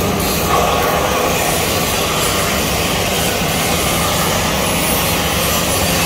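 ABA blown film extrusion machine running during start-up: a loud, steady rush of air with a low, even hum underneath.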